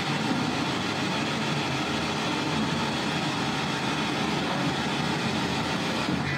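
Static from a radio spirit box scanning the FM band from the high end downward at a fast clip, played through a speaker: a steady, choppy hiss with no clear voice.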